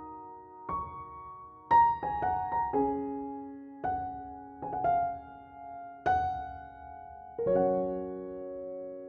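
Background piano music: a slow, gentle melody of single notes and chords, ending on a long held chord.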